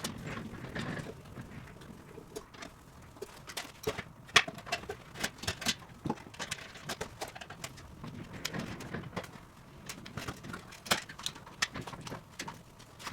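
Irregular clicks, taps and knocks, scattered unevenly through, with a louder knock about four seconds in.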